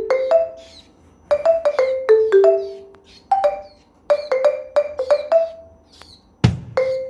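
Background music: a light melody of struck mallet-percussion notes that ring and die away in short runs. A deep drum beat joins about six and a half seconds in.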